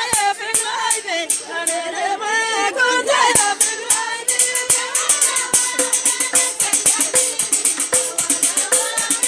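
Women singing a traditional folk song together, accompanied by the naqous, a struck metal percussion instrument, playing sharp rhythmic strokes that grow denser and quicker about four seconds in.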